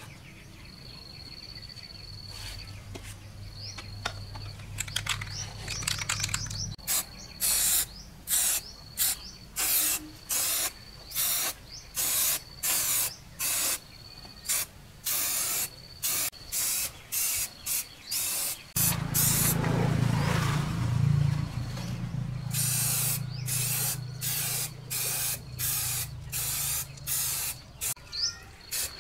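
Aerosol spray can sprayed onto a diesel engine in a long run of short hissing bursts, roughly one and a half a second, with one longer continuous spray of about three seconds in the middle.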